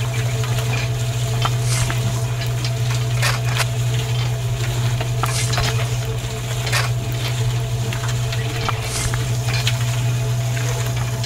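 Small electric motor driving a miniature vibrating sand sieve, humming steadily, with a grainy hiss of sand running over the screen and scattered light clicks and scrapes of sand and a tiny shovel.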